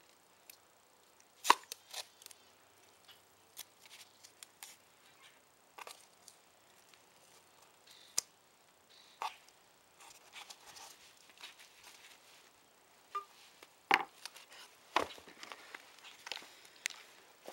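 Scattered sharp clicks and taps from handling a plastic water bottle while taping its cap, with single loud snaps about a second and a half in and again near fourteen seconds.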